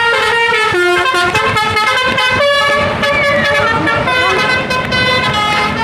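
A telolet horn on an Indonesian bus playing a loud melodic tune: several horn tones sounding together, jumping from note to note every quarter to half second.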